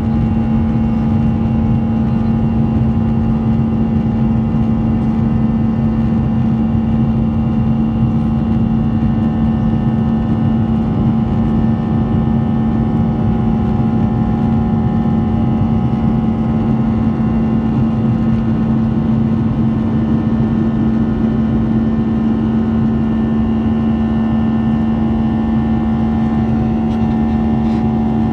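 Boeing 737-800 cabin noise in flight: its CFM56-7B jet engines and the airflow around the fuselage make a loud, steady rush, with a constant low hum and a few fainter steady tones above it.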